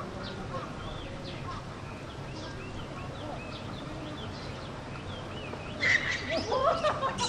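Birds chirping, short repeated calls over a steady outdoor background hum. About six seconds in, louder calls or voices break in.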